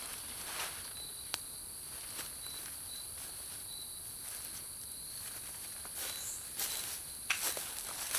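Steady high-pitched insect drone with a thin, on-and-off trill, as of crickets. Occasional light clicks and short rustles over it, busier near the end.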